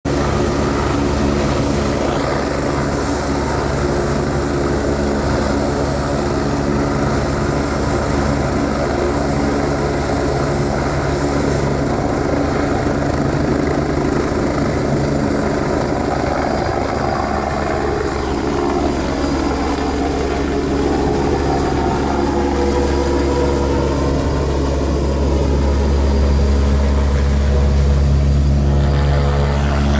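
Medical helicopter's turbine engine and rotor running at a steady loud level, with a high thin turbine whine that rises in pitch about twelve seconds in as it lifts off the helipad. The low rotor sound grows louder near the end as it climbs away.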